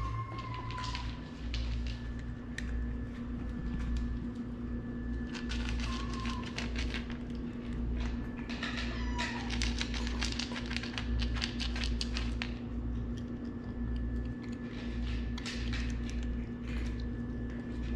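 Kittens giving a few short, high mews that fall in pitch, with bursts of rapid clicking between the calls and a steady low hum underneath.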